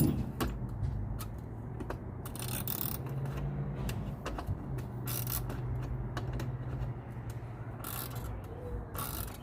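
Small hand ratchet clicking in short strokes while driving a 5/16 screw on a motorcycle headlight mount, over a steady low hum.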